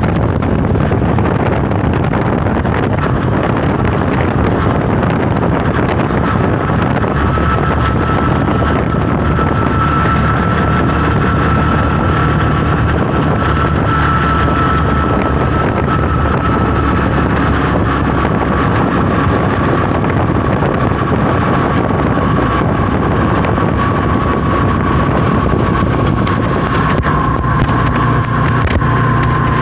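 Steady engine and road noise with wind buffeting, heard from aboard an open-sided passenger vehicle driving along a road. From about six seconds in, a faint high whine runs through it and slowly drops in pitch.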